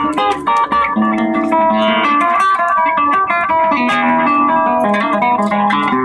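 Solo classical guitar fingerpicked: a quick run of plucked notes in the first second, then ringing melody notes over held bass notes.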